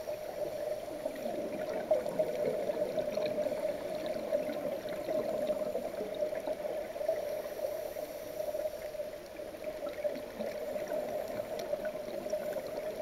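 Underwater sound picked up by a camera in a waterproof housing on a scuba dive: muffled gurgling water with a steady hum.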